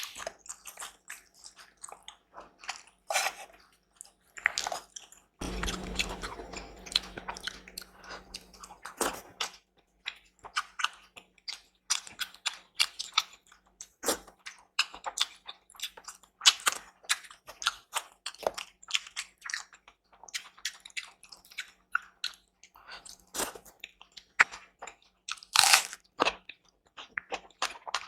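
Close-miked eating: continuous chewing and crunching with wet mouth clicks and smacks. About five seconds in there is a longer, fuller stretch of noise lasting some three seconds.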